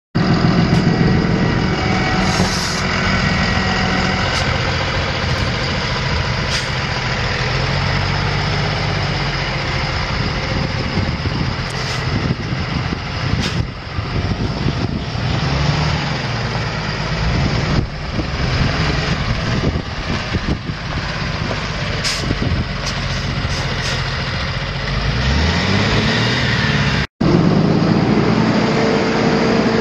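Diesel engine of a Freightliner M2 bucket truck idling steadily, rising briefly in pitch near the end.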